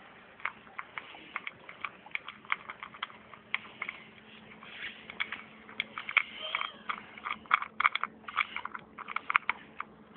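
Bouvier des Flandres puppy eating dry dog biscuits from a metal bowl: irregular crunches and clicks, sparse at first and coming thick and fast in the second half.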